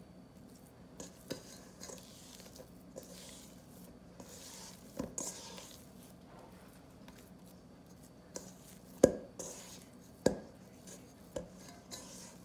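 Wet sourdough dough being squeezed and mixed by hand in a stainless steel bowl, with soft sticky squelching and several sharp knocks against the metal bowl, the loudest about nine seconds in. The flour, water and starter are being brought together into a shaggy dough.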